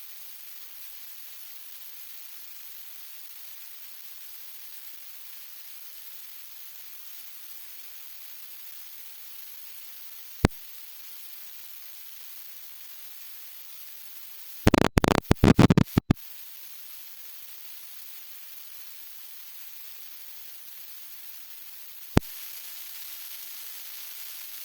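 Steady high hiss of recording noise with no engine running. A single sharp click comes about ten seconds in, a second-long burst of crackling clicks about fifteen seconds in, and another click near the end.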